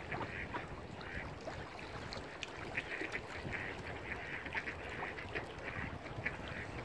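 Mallard ducks quacking over and over in short, overlapping calls, over a low rumble of wind on the microphone.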